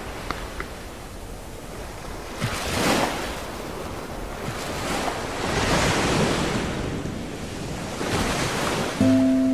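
Sea water sloshing and lapping around a camera held at the surface, swelling in three surges, with wind on the microphone. Music with steady held notes cuts in just before the end, louder than the water.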